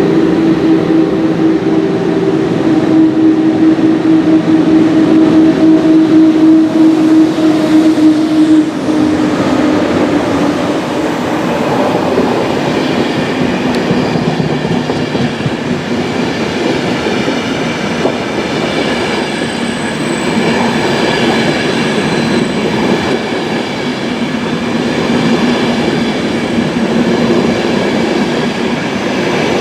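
An ÖBB 1144 and an ÖBB 1116 Taurus electric locomotive pass, hauling a train downhill under braking. Their steady motor and fan hum is loudest about six to eight seconds in, then drops in pitch as they go by. The passenger coaches follow, rolling past with wheel clatter and high squealing tones.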